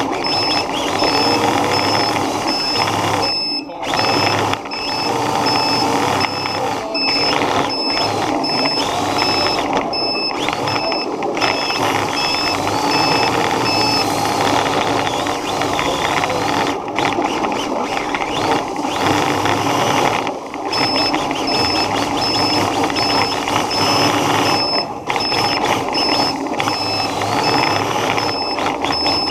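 Radio-controlled car running hard over a smooth floor, heard up close: a loud, steady, noisy whir of motor, gears and tyres, with a few brief dips as it eases off.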